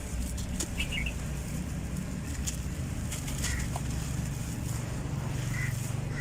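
Dry, grainy black sand-cement clumps crumbling, with a few sharp crackles over a low steady rumble. Faint chirps, likely birds, come and go in the background.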